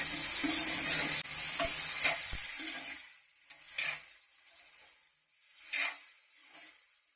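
Scramberries sizzling in hot oil while a metal spoon stirs them. The sizzle drops suddenly about a second in and dies away by about three seconds, and a few separate stirring scrapes follow.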